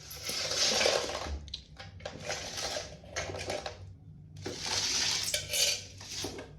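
Marbles rolling and clattering down a marble run track, in several rattling runs with short pauses between them.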